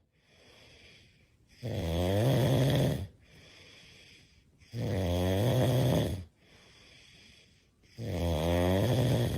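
A dog snoring: three loud snores, each lasting over a second, about three seconds apart, with quiet breathing between them.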